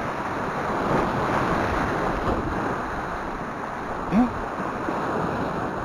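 Sea surf washing and breaking against a rocky shoreline, a steady rush of water.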